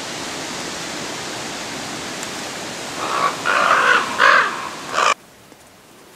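About four short animal calls in quick succession over a steady hiss of background noise; the sound cuts off suddenly shortly after.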